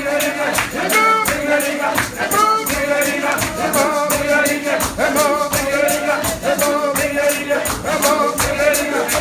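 Church singing: voices singing a hymn over a steady shaken-percussion beat of about four shakes a second.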